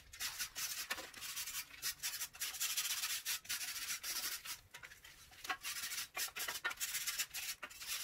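A wire grill brush scrubbing burnt-on grease and carbon off a gas grill's perforated steel burner-cover bars, in quick repeated rasping strokes with a short pause about midway.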